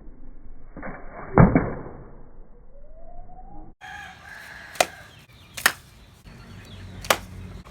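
A rooster crowing in the background with a heavy knock about a second and a half in; then, after a cut, three sharp cracks about a second apart, typical of a blade chopping bamboo.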